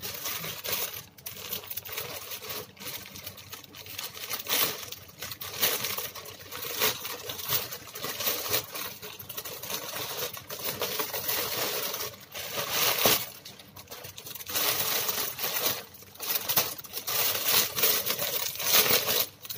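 Plastic rustling and crinkling in irregular surges as a white poly mailer bag is opened and handled. Near the end it is a clear plastic bag holding the garment that crinkles.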